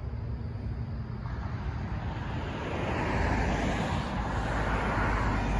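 Approaching Union Pacific freight train: a low rumble and noise that builds steadily, clearly louder from about three seconds in.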